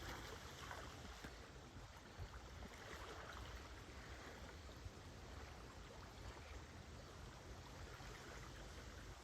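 Faint, gentle small waves washing on a lakeshore, a soft, steady wash that swells slightly now and then.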